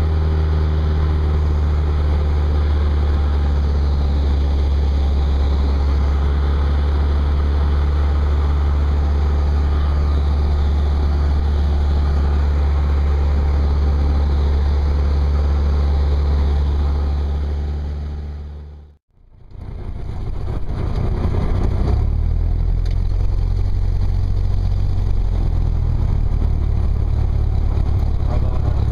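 Light propeller plane's engine droning steadily as heard inside the cabin in flight. About 19 seconds in it fades out, and after a cut the engine runs less steadily at a lower level of drone while the plane rolls along the runway.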